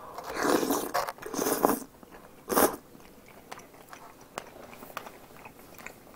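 Noodles slurped into the mouth in three hissy sucks over the first three seconds, then quiet chewing with small mouth clicks.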